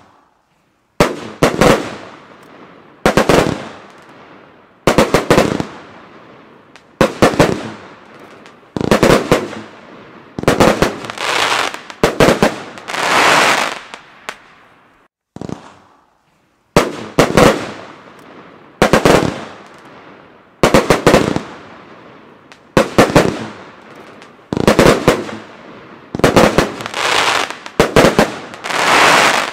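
SRPyro Gold Edition 35-shot, 25 mm fan cake firing: loud groups of sharp shots about every two seconds, each followed by a longer wash of sound from the gold effects bursting overhead. There is a short lull about halfway.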